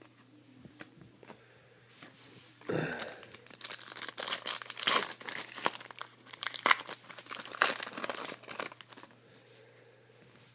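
Crinkling and tearing of a trading-card pack wrapper being torn open and handled, a quick run of crackles and rips that starts about two and a half seconds in and dies away near the end.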